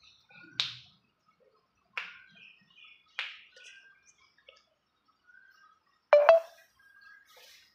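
Three sharp snaps from a karate practitioner's strikes, then, about six seconds in, a short loud shout, a kiai. Faint bird chirps in the background.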